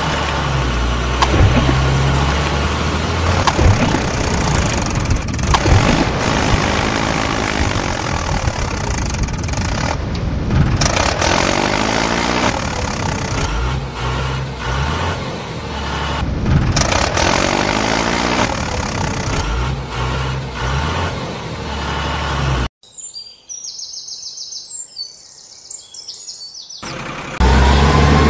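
Vehicle engine running steadily with a low hum, over bird chirps. It cuts out abruptly about 23 seconds in, and a few seconds later it comes back loud.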